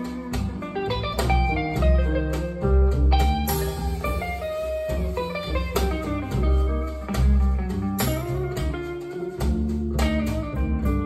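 Instrumental passage of a song, guitar-led with strong bass notes, played back through a pair of Celef LS8 stand-mounted speakers.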